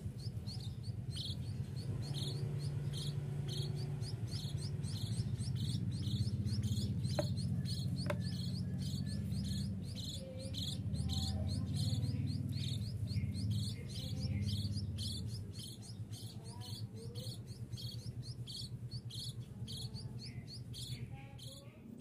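Hand-reared Javan munia chicks calling: a steady series of short, high chirps, about two or three a second, over a low rumble.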